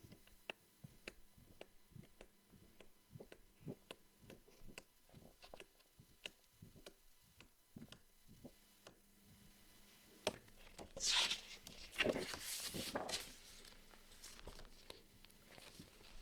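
Paper crafting by hand: a string of light clicks and taps, then louder paper rustling and scraping strokes about eleven seconds in.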